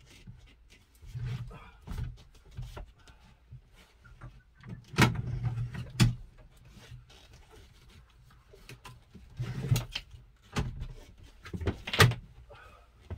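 Clunks, clicks and knocks from a 2003 Nissan Elgrand swivel seat being turned by hand and latched into place, with handling rustle between them. The loudest knocks come about five, six, ten and twelve seconds in.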